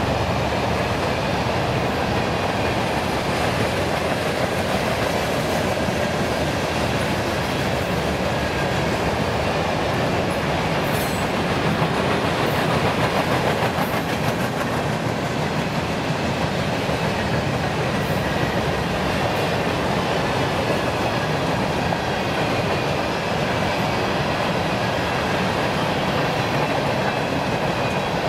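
CSX freight train's cars rolling past, a steady rumble of steel wheels on the rails that holds without a break.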